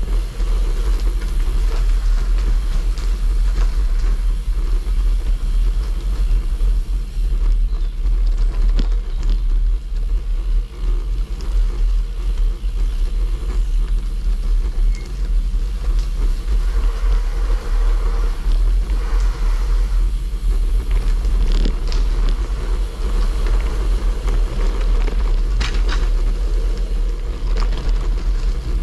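Road bike riding a rough, unsurfaced track of potholes, puddles, gravel and mud: a steady low rumble of tyres and bike vibration, with a few sharp knocks from bumps.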